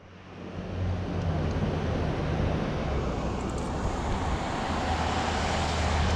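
Steady road traffic noise with a low engine hum underneath. It swells over the first second, then holds even.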